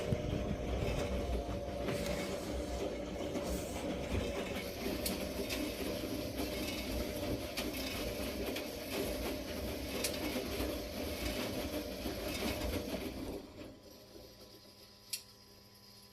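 Beko washing machine running a wash cycle with a steady rumbling churn, which stops about thirteen seconds in, leaving a faint steady hum; a single click comes near the end.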